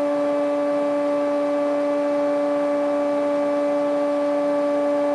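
Electric motor of a workshop machine running at a steady speed: a constant hum with a clear pitch and overtones.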